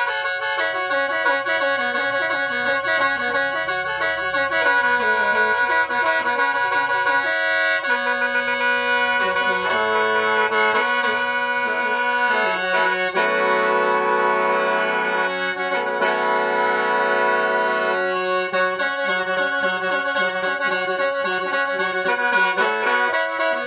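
Khaen, the Lao bamboo free-reed mouth organ, played solo: a running melody over steady drone notes. A chord is held for about five seconds past the middle, then the melody resumes.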